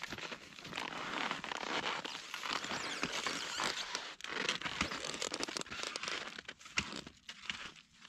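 Alpine touring skis with climbing skins shuffling and crunching over snow, with clothing rustling as the skier ducks under a snow-laden tree: an irregular run of scrapes and crunches.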